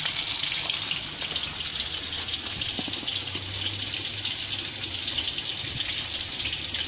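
Steady sizzling hiss of food cooking in a wok on the stove, with many small crackles.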